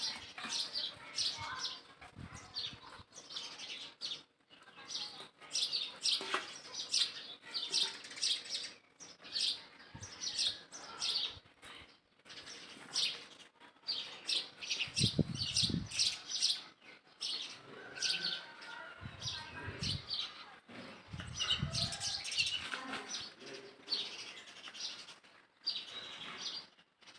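Continuous rapid, high-pitched chirping calls from small animals. A few low rumbles come in about halfway through and again near the end.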